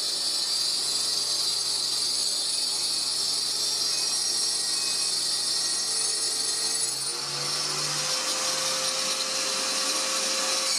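An electric router on a lathe copying attachment runs with a steady high whine, milling a turning wooden blank into a cylinder on a small wood lathe. About seven seconds in the cutting noise becomes harsher and noisier.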